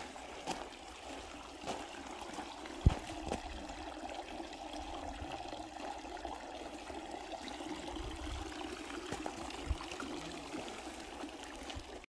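Steady trickle of water running into a carved stone spring-water basin, with a single sharp knock about three seconds in.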